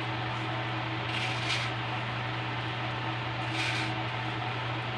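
A pot of noodle soup simmering on the stove: a steady hiss over a low hum, with two brief soft rustling swells, about a second and a half in and again near the end, as fried garlic is sprinkled over the noodles.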